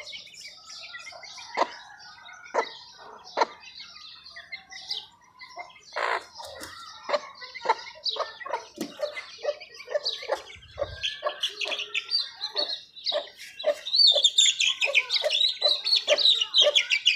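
Aseel hen and her month-and-a-half-old chicks: a run of short, separate clucks. From about eleven seconds in come rapid high-pitched cheeps that grow loud near the end as a chick is grabbed.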